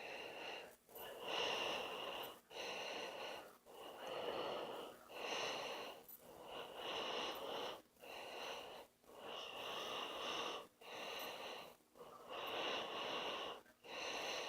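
A person breathing close to the microphone: steady, evenly spaced breaths, one about every second and a half.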